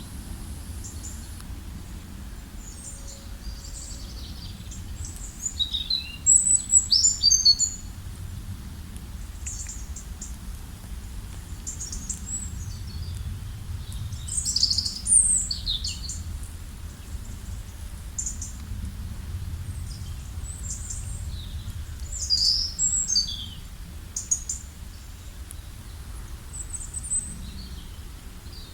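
Several songbirds chirping and singing, short high calls and trills coming in bursts, loudest about six seconds in, near the middle and again about two-thirds through, over a steady low background rumble.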